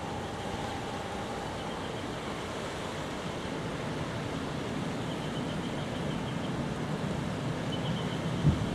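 Steady rush of wind and churning water on a cruise ship's deck, with a faint machinery hum that fades out about a second and a half in. A brief thump comes near the end.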